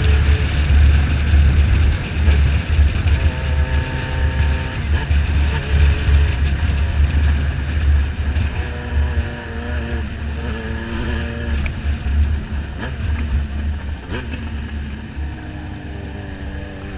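Motorcycle riding: heavy wind rumble on the microphone, with the engine's note rising and falling with the throttle underneath it. The wind eases a little in the second half.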